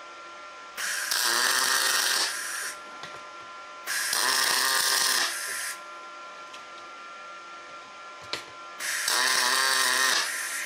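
MIG welder spot-welding aluminium: three arc bursts of about one and a half seconds each, with a steady hum between them.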